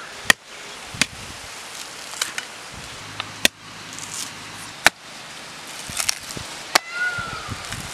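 A curved blade chopping into the fibrous husk of a whole coconut to strip it: about eight sharp, separate chops at an irregular pace, the loudest near the start, in the middle and near the end.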